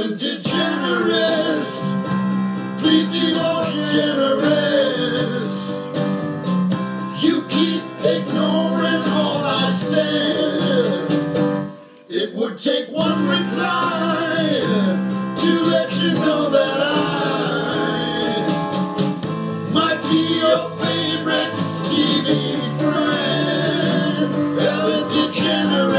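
A man singing a pop-style song over recorded backing music, with a short break about halfway through.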